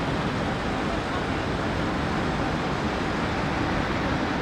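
Steady city street traffic noise, an even rumble of passing vehicles.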